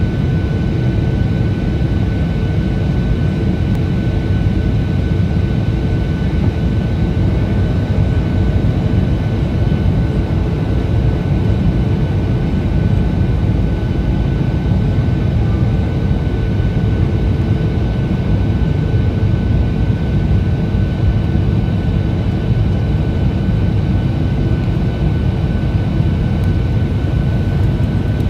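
Steady engine and airflow noise inside the cabin of a passenger airliner descending on approach to land, with a thin steady whine above it.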